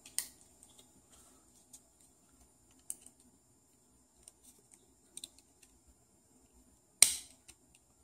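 Needle-nose pliers clicking and ticking against a small plastic seat belt retractor locking-mechanism part while working to grab a partly pushed-out pin, with faint scattered ticks and one sharp, louder click about seven seconds in.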